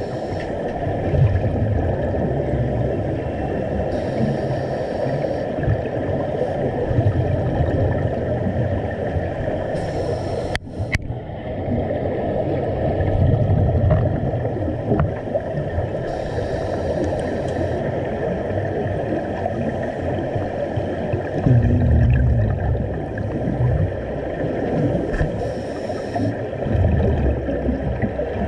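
Underwater scuba sound picked up by a GoPro Hero 7 Black: a steady muffled rumble of divers' exhaust bubbles. A regulator hiss recurs about every five to six seconds, in time with breathing, between low swells of exhaled bubbles.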